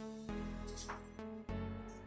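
Instrumental background music, a melody of separate notes one after another.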